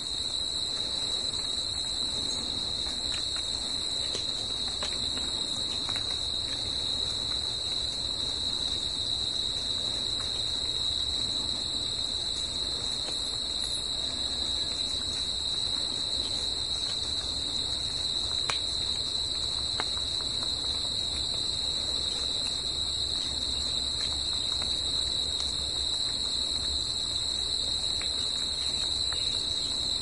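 A chorus of crickets singing: a steady, unbroken high-pitched trill.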